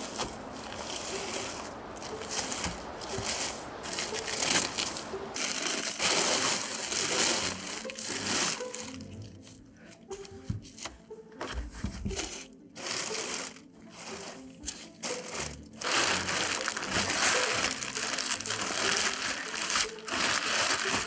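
Large plastic bag rustling and crinkling as it is dragged and handled in a cramped space, in loud bursts with a quieter stretch midway.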